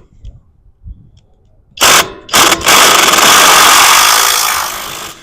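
Power impact wrench on an extension undoing a bolt held with red threadlocker on the transmission's clutch arm: two short bursts about two seconds in, then a long loud run that tapers off near the end.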